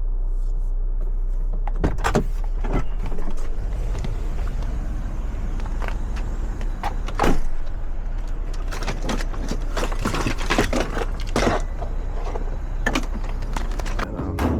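Car driving: a steady low road rumble inside the vehicle, with scattered short knocks and clicks on top of it.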